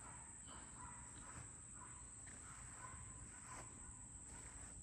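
Faint outdoor ambience: a steady high-pitched insect drone, with a few faint, scattered bird chirps.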